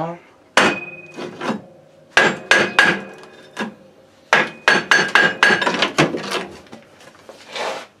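Hammer blows on a wooden block held against the movable half of a microcar's engine variator (CVT drive pulley), knocking the pulley loose from its shaft. A dozen or more sharp strikes come in irregular bursts, several with a short metallic ring.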